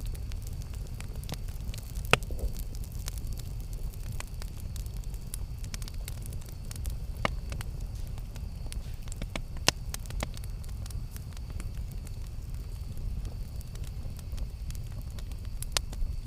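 Campfire burning: a steady low rumble under a constant scatter of small crackles, with a few sharper, louder pops, one about two seconds in and one near the middle.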